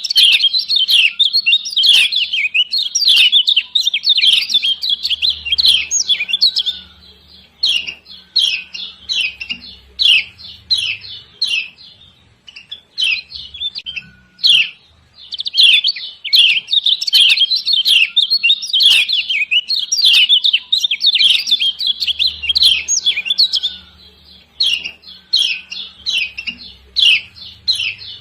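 Female kecial kuning (Lombok white-eye) giving rapid, sharp 'ciak ciak' chirps in long dense runs, thinning to scattered chirps for a few seconds about a third and a half of the way through, then bursting on again; the 'ciak jos' call is used as a lure to get other white-eyes singing.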